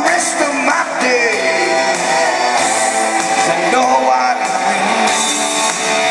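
A man singing live into a handheld microphone over a karaoke-style rock backing track with guitar, amplified through the PA.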